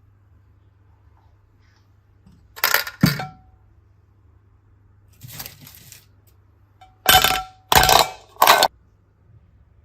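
Handling noises of small hard objects: short clattering, clinking bursts with a brief ringing tone, a pair about three seconds in, a softer one midway, and three in quick succession near the end.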